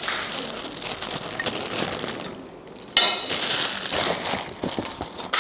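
Paper food wrapper being crumpled and handled, a dense crinkling rustle, with a sudden sharp crackle about three seconds in, the loudest moment.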